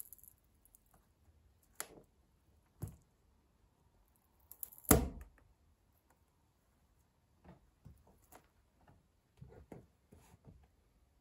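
Stiletto heel crushing a splintered wooden pencil on a laminate floor: scattered sharp cracks and clicks of wood and heel, the strongest about five seconds in, with lighter clicks near the end.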